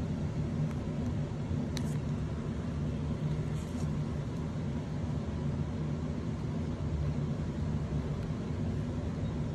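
A steady low mechanical hum, with a couple of faint ticks about two and three and a half seconds in as a single-edge razor blade cuts spar slots in a balsa wing rib.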